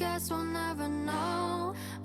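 K-pop song playing: a girl group singing held, sliding notes over a steady bass line.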